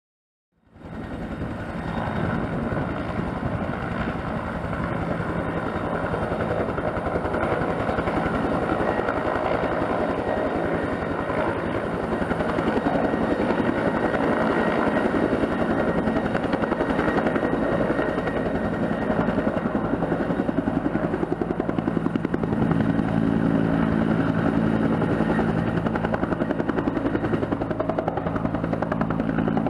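Bell 212 twin-turbine, two-bladed helicopter running steadily: turbine whine over a fast rotor chop. The sound cuts in about a second in, and about 22 s in a low hum grows stronger.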